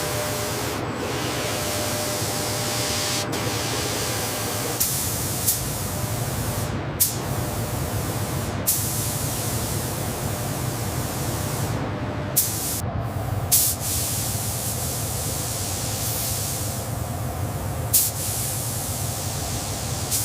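Steady hissing noise, like a spray or air jet, over a low hum, broken by a few sharp clicks.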